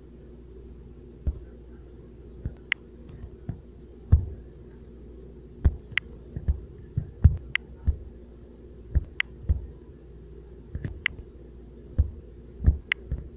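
Irregular soft thumps and sharp clicks, roughly one or two a second and unevenly spaced, over a steady low background hum.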